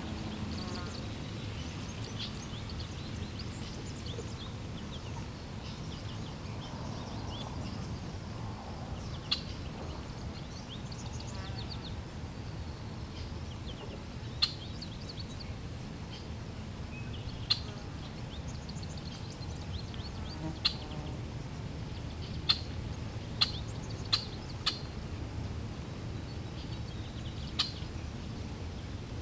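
Steady flowing water with wild birds calling over it: short, sharp chirps, about ten of them scattered through, most in the second half.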